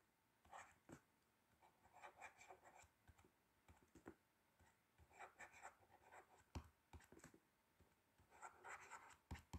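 Faint scratching and light ticks of a pen writing by hand, in short scattered strokes with pauses between them.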